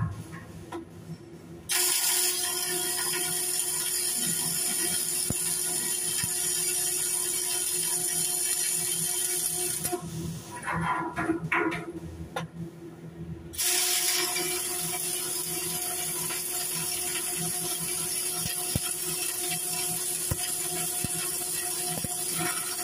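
Arc welding inside a steel crane box girder: the arc gives a steady hiss that starts about two seconds in, stops for a few seconds around the middle, then starts again and runs on.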